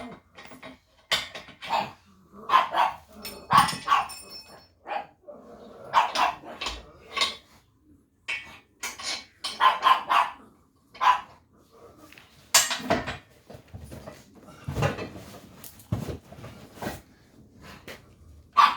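A dog barking over and over, in short barks with brief pauses between them.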